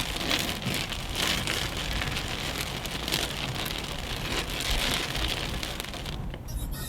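Heavy rain hissing and pattering steadily, swelling and easing every second or two over a low rumble. The high hiss falls away shortly before the end.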